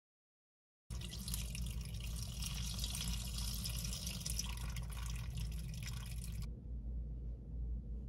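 Soaking water poured off a bowl of black beans into a kitchen sink, splashing down the drain; it starts about a second in and stops about six and a half seconds in. A steady low hum runs underneath and goes on after the pouring stops.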